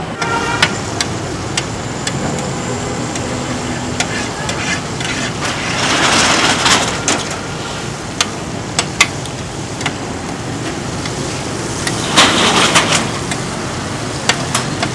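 Steel spatula clanking and scraping on a large iron tawa as liver fries and sizzles, with two louder stretches of scraping and sizzling about six and twelve seconds in. A steady hum of street traffic runs underneath.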